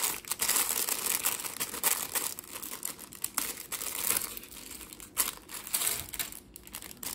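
Thin plastic parts bag crinkling and rustling as hands tear it open and shake out the small Lego bricks, with sharp little clicks as the pieces spill onto the table. The rustling thins out near the end.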